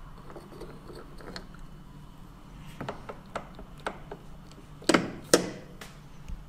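A key support being fitted under the block key of a mechanical railway block instrument: a run of small clicks and scrapes, then two loud knocks close together about five seconds in as the parts seat.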